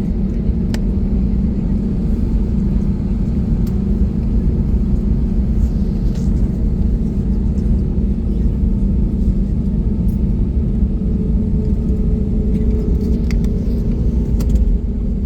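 Steady low rumble of a jet airliner's engines and airframe heard inside the passenger cabin, with a few faint clicks.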